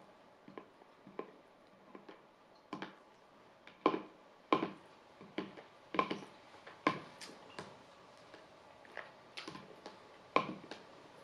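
Metal spoon clicking and scraping against a plastic bowl as it digs through the food, in irregular taps with a short ring; the loudest few come around the middle.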